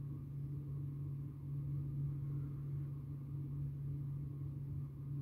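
A steady low hum, unchanging throughout, with no other sound on top of it.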